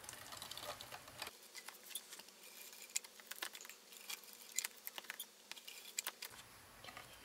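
ATG tape gun laying a strip of adhesive tape along a paper frame: a faint run of small, irregular clicks and ticks from the gun's mechanism and the tape on the card.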